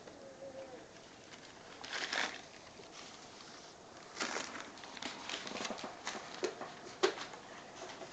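Newspaper flyer paper rustling and crinkling in irregular bursts as a baby grabs it and crawls over the scattered sheets, with a sharper crackle near the end.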